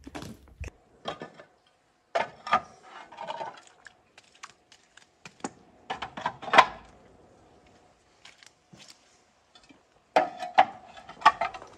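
Irregular knocks and clinks of clay roof tiles being handled and set down, in small clusters, the loudest hit a little past halfway.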